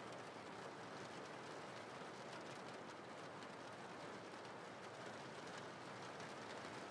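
Steady rain falling: an even hiss with a faint patter of drops.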